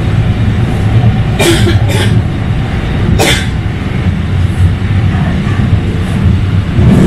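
Kinki Sharyo SLRV light-rail car running along the track, heard from inside: a steady low rumble. Three short sharp noises cut in about a second and a half, two and three seconds in.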